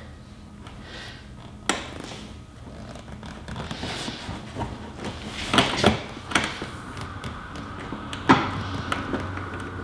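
Hands and a wrench working on a nut in a tight space behind a car's rear fender panel: about four sharp knocks and clicks, spread out, with faint scraping and rustling between them.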